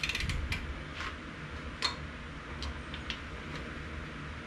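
Ratchet wrench clicking on LT1 cylinder-head bolts: a quick run of clicks at the start, then single clicks every half second or so, over a low steady hum.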